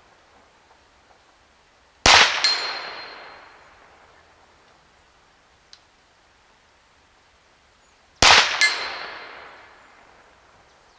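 Two shots from a Huben K1 .22 PCP air pistol, about six seconds apart. Each is a sharp crack answered less than half a second later by a second crack, then a long echoing tail.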